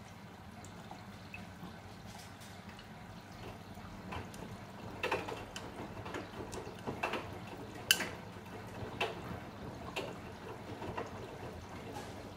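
Bosch Serie 8 front-loading washing machine mid-cycle: water splashing and dripping inside the drum about once a second as the wet load tumbles, over a low steady hum. The splashes begin about four seconds in, and the loudest comes near the eight-second mark.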